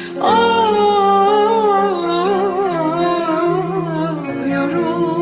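A woman's voice singing a slow Turkish ballad, holding one long note that wavers in the middle, over a karaoke backing track.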